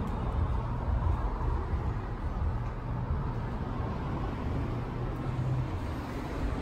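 Street traffic: a steady low rumble of vehicles on the road.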